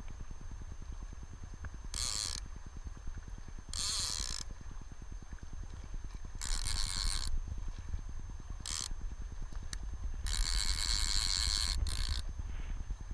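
Fly reel's ratchet clicking in five bursts, the last and longest lasting about two seconds, as line runs on and off the spool while a hooked steelhead is being played. A steady low rumble of wind and river runs underneath.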